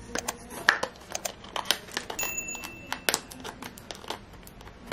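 Crinkling and rustling of small gift packaging being handled and unwrapped by hand, with many irregular little clicks and crackles.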